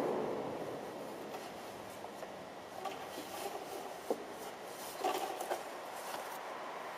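Soft rustling and rubbing of hair and fabric as a costume wig is worked off the head, with a sharp small click about four seconds in and a brief cluster of rustles about a second later.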